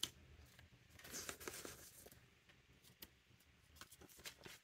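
Faint, scattered rustling of paper banknotes being handled and laid into a cash binder's pocket.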